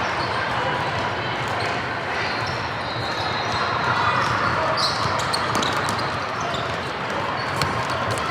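A basketball bouncing on a court during a game, over a steady din of spectators' voices.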